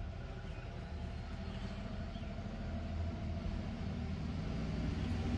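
A steady low mechanical hum with a few faint held tones, slowly growing louder.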